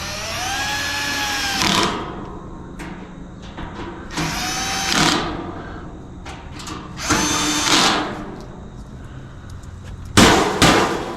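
Power drill driving screws into the sheet-metal nesting box in three short runs, each a motor whine that climbs in pitch and then settles. Near the end come two sharp loud knocks, the loudest sounds here.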